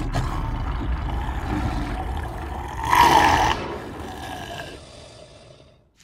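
Monster roar sound effect for the Gryphon kaiju: a low, rumbling growl that swells into a louder, brighter roar about three seconds in, then fades away.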